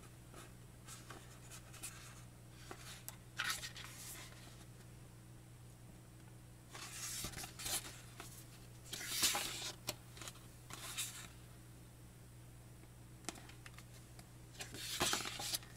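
Pages of a thick photo book being turned and flicked through by hand: soft paper rustles and swishes in several short bursts, over a faint steady low hum.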